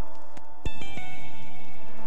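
Background music of held tones, with a new chord struck about two-thirds of a second in.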